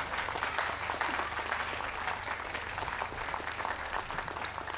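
Audience applauding, easing off slightly toward the end.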